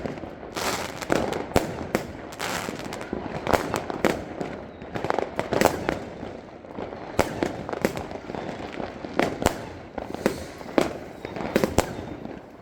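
Fireworks going off: an irregular string of sharp bangs, several a second at times, over constant crackling.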